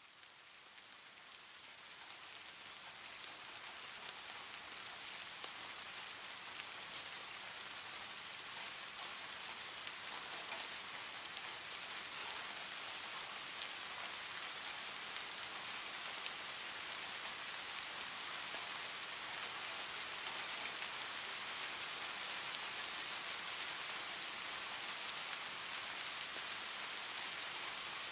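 Soft, steady rain falling on wet street pavement, a dense hiss of many small drops. It fades in over the first few seconds, then holds even.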